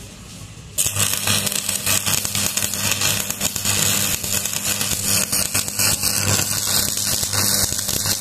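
Stick (shielded metal arc) welding: the electrode's arc strikes about a second in and then crackles and sizzles steadily, over a steady low hum, while a second bead is run along a shaft overlapping half of the first one.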